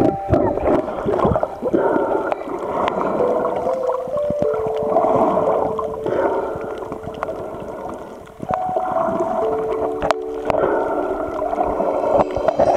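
Humpback whale song heard underwater: long held tones that step up and down in pitch, sometimes overlapping, over a steady crackle of sharp clicks from the reef.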